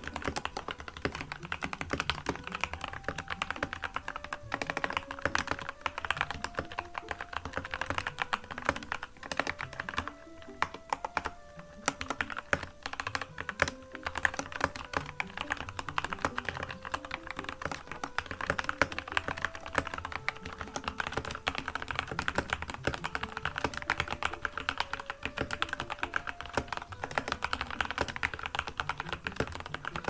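Fast, continuous typing on a Dustsilver D84 mechanical keyboard with Gateron Red linear switches, key clacks coming in rapid runs with a brief lull about ten seconds in.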